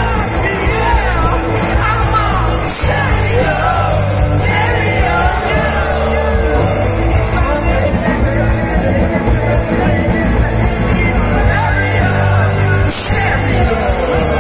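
Live indie rock band playing: a male singer singing loudly over electric guitar, keyboard and drums.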